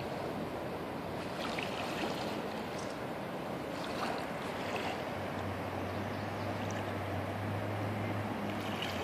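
Floodwater of the North Saskatchewan River running over a submerged riverside path, a steady rush of moving water. A low steady hum joins it about five seconds in and fades near the end.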